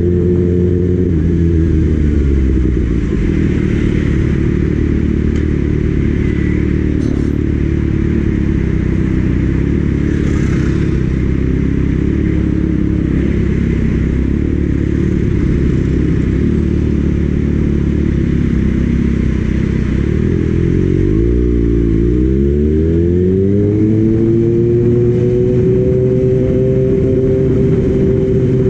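Kawasaki Ninja ZX-6R's inline-four engine running steadily under way, with wind noise. About three quarters of the way in the engine note drops, then climbs back up and holds steady.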